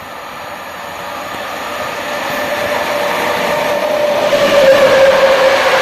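Train approaching, growing steadily louder, with a steady tone that sinks a little in pitch as it draws near.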